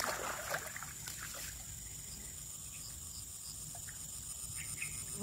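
A few light clicks and rustles in the first second and a half as a fishing rod and spinning reel are handled. After that comes a faint, steady background with a constant high-pitched drone.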